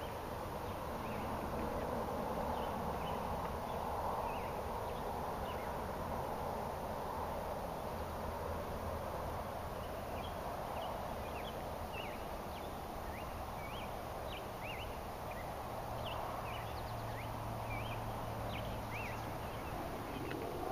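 Outdoor ambience: small birds chirping in short, quick notes over a steady background hiss. The chirps come thicker and faster in the second half.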